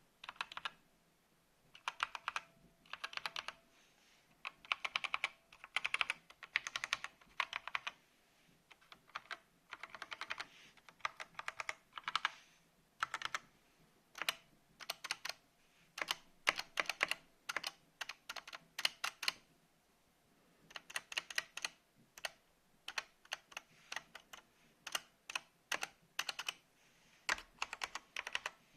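Typing on an AOC GK500 mechanical keyboard with Outemu Red linear switches: quick runs of key clacks about a second long with short pauses between, and later more spaced-out single keystrokes among the runs.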